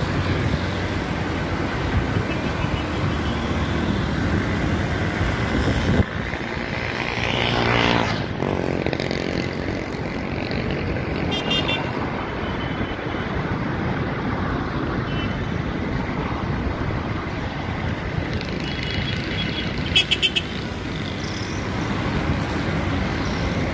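Road traffic running steadily, with engines and several short car-horn toots through it.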